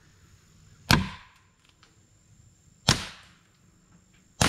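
Suppressed Ruger Mark IV .22 LR pistol firing three shots, each a sharp crack with a short fading tail, spaced about one and a half to two seconds apart, the last right at the end.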